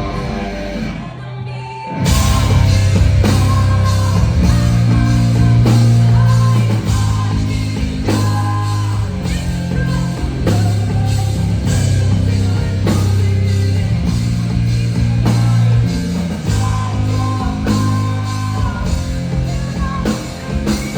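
Live rock band playing loud. A sparser guitar part runs for about two seconds, then the full band comes in with driving drums, heavy bass and electric guitar under a sung vocal.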